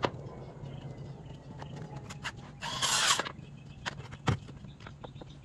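Knocks and clicks of tools and a bucket being handled, over a low steady hum. A short, loud noisy burst lasting under a second comes near the middle, and a dull thump follows just after four seconds in.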